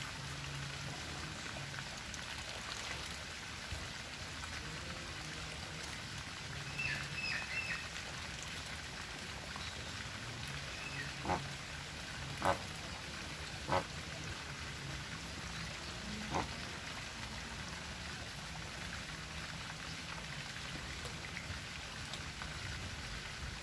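Outdoor ambience with a steady hiss, a brief run of high chirps about seven seconds in, and four short sharp sounds spread between about eleven and sixteen seconds in.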